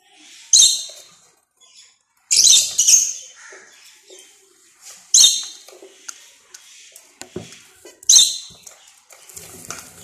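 Male zebra finch giving loud, harsh, nasal calls. There is a single call about half a second in, a quick run of calls at two to three seconds, then single calls at about five and eight seconds.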